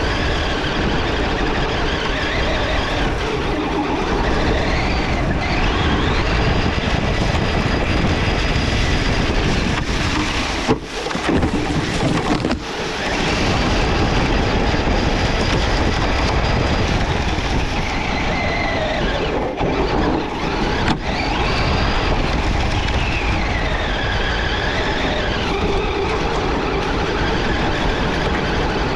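RC truck driving fast over dry grass and leaves, heard from on board: a steady loud rumble and rattle of the chassis and tyres, with the motor's whine rising and falling as it speeds up and slows. The sound drops away briefly about eleven and thirteen seconds in.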